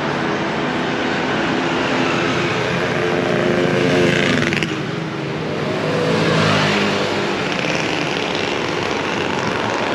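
Street traffic: motor vehicles running close by, with an engine note rising twice, about four and six seconds in, as vehicles accelerate past.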